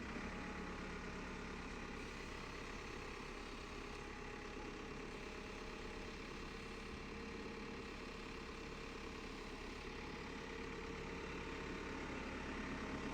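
JCB backhoe loader's diesel engine running steadily at idle.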